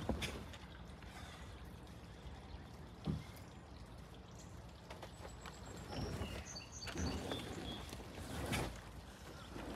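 A heavy wooden animal shelter shoved and dragged over grass and dirt in a few scraping pushes in the second half, after a single knock about three seconds in. Wind rumbles on the microphone, with a few faint high chirps.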